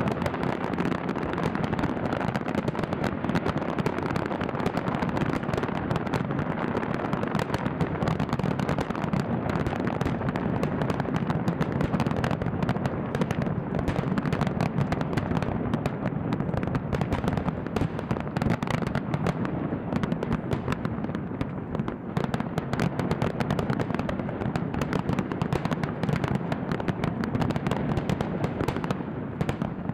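Fireworks display: a dense, unbroken barrage of bangs and crackling bursts.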